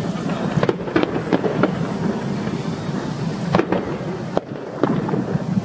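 Aerial fireworks going off: a rapid series of sharp bangs and cracks, some in quick clusters of two or three, over a steady background rumble.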